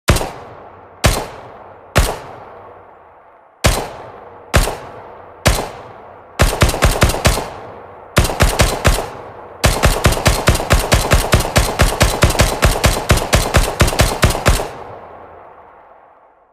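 Thompson submachine gun (Tommy gun) firing: six single shots about a second apart, then two short bursts, then a long rapid burst of about five seconds. The last burst is followed by a reverberant tail that fades over about two seconds.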